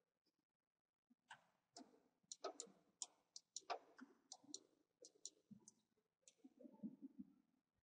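Faint, irregular clicks of a computer mouse, a dozen or more, starting about a second in, with some soft low handling noise near the end.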